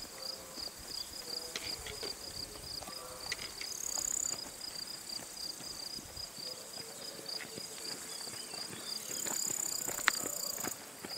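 Insects chirping: a steady high chirp pulsing about five times a second, with a higher, even insect buzz coming in twice. A few faint clicks are mixed in.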